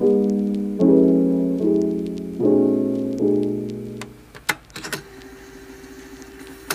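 Background music: soft piano chords, each struck and fading, about one every 0.8 seconds. They stop about four seconds in, followed by a few sharp clicks and a faint steady tone.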